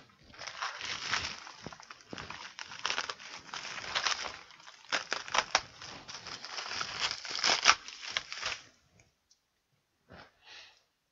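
A packaging bag being torn open and handled: crinkling and tearing with sharp crackles for about eight seconds, then it stops.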